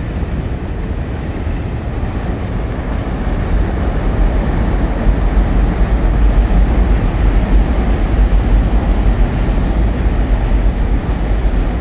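R188 (7) subway train running along the elevated Flushing Line structure: a steady rumble that grows louder about four seconds in.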